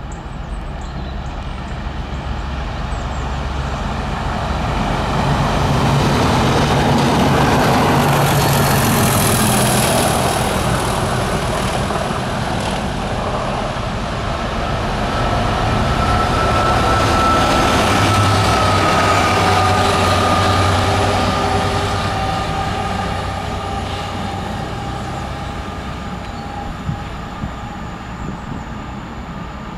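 Two diesel train movements pass in turn. First a test train with Class 37 locomotive 37603 on the rear runs by, loudest about eight seconds in. Then a Freightliner Class 66 diesel running light passes, loudest about eighteen seconds in, its engine hum and a high whine that dips slightly in pitch swelling and then fading as it draws away.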